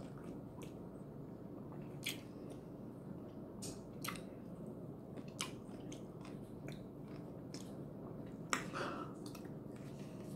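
A person biting into and chewing a whole sour pickle coated in peanut butter, with scattered short clicks and a few louder bites, the loudest about eight and a half seconds in.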